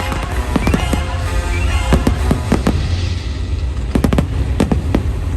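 Fireworks bursting in quick succession, a string of sharp bangs and crackles with the show's soundtrack music running underneath.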